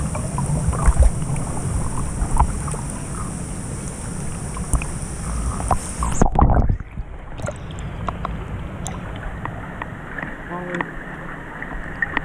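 Whirlpool jets churning and bubbling the pool water right at a GoPro's microphone. About six seconds in there is a loud splash and the sound suddenly turns duller and quieter as the camera dips into the water.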